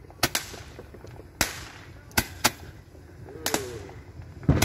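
Consumer fireworks going off: a string of about eight sharp bangs at uneven spacing, the loudest pair near the end, over a low rumble.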